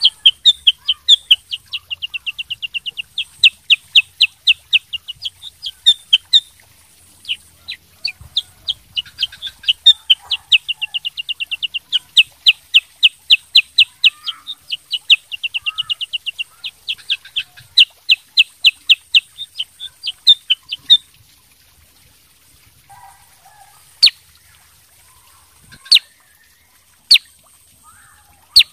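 Black-headed bulbul singing: long runs of sharp, rapid chipping notes, several a second, for about twenty seconds. Then come a few single loud chips, a second or two apart.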